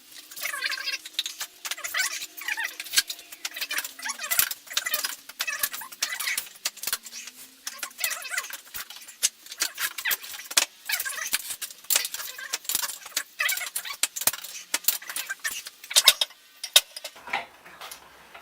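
Quick, irregular metallic clinks and rattles of tools and parts being handled while a motorcycle wheel is stripped. A faint low hum sinks slowly in pitch during the first half.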